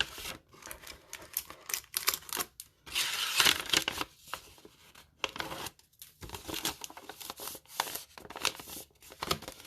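Booster packs and paper envelopes crinkling and rustling as they are handled, in a run of short bursts with a longer, louder stretch about three seconds in.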